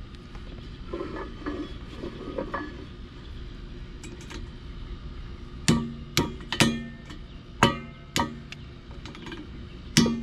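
Hammer striking steel, six sharp blows in the second half at uneven spacing, each leaving the metal ringing, with lighter metal clattering a little earlier.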